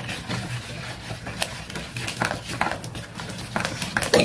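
A silicone whisk stirring batter in a plastic mixing bowl, with irregular soft knocks and scrapes, mixed with a child's breathy, stifled giggling.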